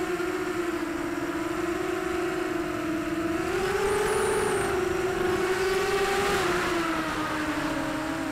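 The four SunnySky X2204S 2300KV brushless motors and Gemfan 6045 props of a ZMR250 FPV racing quadcopter whining in fast, low flight, with wind hiss, as picked up by its onboard camera. The pitch rises about three and a half seconds in and falls back near the end.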